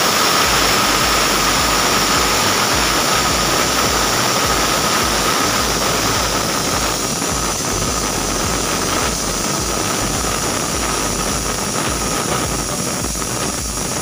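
Aluminium stovetop pressure cooker's weighted whistle lifting and venting steam: a loud, steady hiss with a whistling tone, easing slightly toward the end. The sign that the cooker has come up to full pressure.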